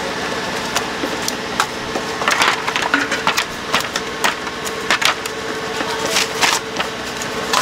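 Crisp fried snack pieces clattering into a metal chute on a steel tray, with metal tongs clicking and scraping against the steel, in a run of short crunchy rattles. A steady hum runs underneath.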